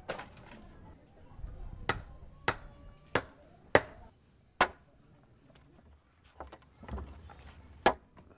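A run of sharp single knocks from hard objects striking, about one every half second to a second, then a pause and one more near the end; some leave a short ringing tone.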